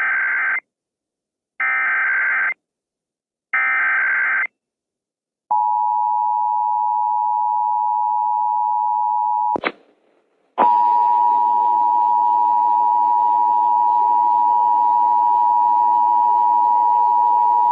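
Emergency Alert System signalling: three one-second bursts of SAME header data about two seconds apart, then a steady EAS attention tone for about four seconds. After a click and a short gap, a second, hissier attention tone starts about ten seconds in and keeps going.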